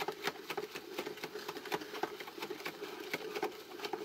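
Rice Krispies cereal tumbling and rattling inside the hand-cranked plastic mixing cylinder of a 2002 Easy-Bake Rice Krispies treats maker, mixing it with the marshmallow mix. It makes a run of irregular light clicks, several a second, over a steady low drone of the turning cylinder.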